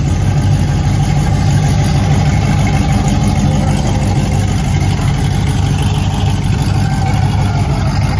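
Engine of a second-generation Chevrolet Camaro running steadily at low revs as the car rolls slowly past.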